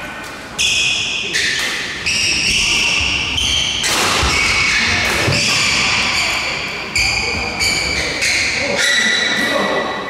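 Badminton players' court shoes squeaking on a wooden sports-hall floor, many short squeaks overlapping, with a few sharp thuds and smacks of footfalls and racket hits, echoing in the large hall.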